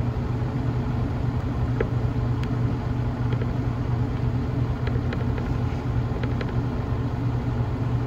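Front-loading washing machine drum spinning at speed near the end of its spin cycle: a steady low hum and rumble, with a few faint light ticks.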